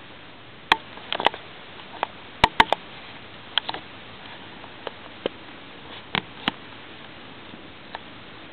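Irregular sharp clicks and crackles, a dozen or so spaced unevenly with a quick cluster about two and a half seconds in: a Goliath birdeater tarantula crunching into a large locust's hard body as it feeds.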